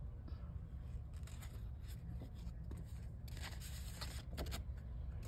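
Faint rustling and crinkling of a paper envelope and index card being handled and pulled apart, busiest about three to four and a half seconds in, over a low steady hum.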